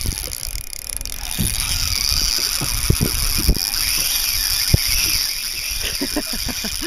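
Spinning reel's drag running as a hooked bonito takes line off the spool: a steady high-pitched ratcheting whir, with a few light knocks from handling the rod.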